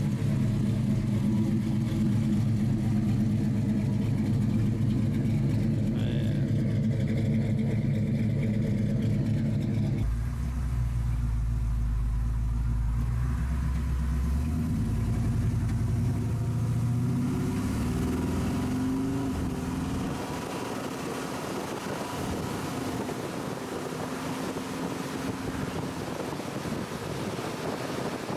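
Hopped-up 430 cubic-inch V8 of a 1947 Diamond T hot-rod truck idling with an even, heavy beat. About ten seconds in, heard from inside the cab, the engine pulls the truck away and rises in pitch as it accelerates. Near the end it settles into a steady cruise under wind and road noise.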